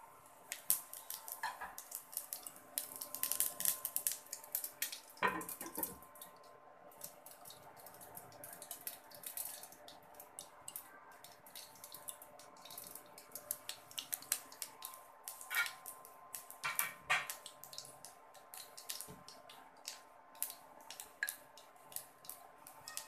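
Whole mustard seeds spluttering and popping in hot oil: quick, irregular crackles that come in clusters. There are a few heavier knocks about five and six seconds in, with another near seventeen seconds.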